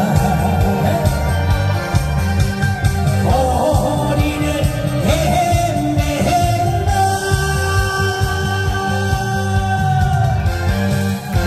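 A singer holding long, gliding notes over a loud backing track with a steady pulsing bass beat.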